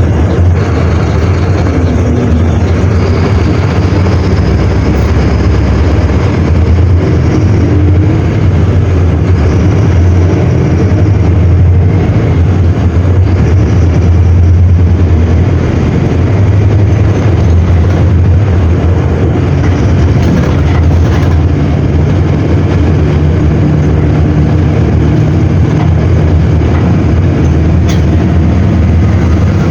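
Mercedes-Benz OM-924 LA four-cylinder inline diesel engine of an OF-1721L BlueTec 5 bus running with a steady, loud low drone, its pitch shifting slightly now and then.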